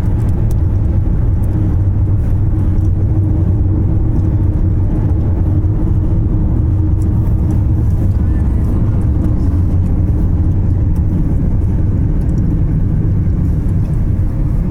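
Steady low rumble of road and engine noise inside a moving car's cabin, with a faint steady hum over it.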